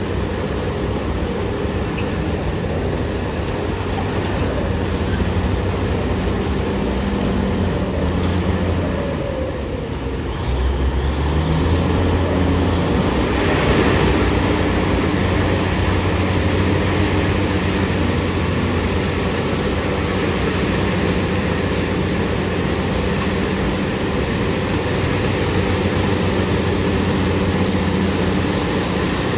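BEML BD355 crawler bulldozer's diesel engine running steadily under work. It dips briefly about ten seconds in, then picks up again with a deeper, stronger note.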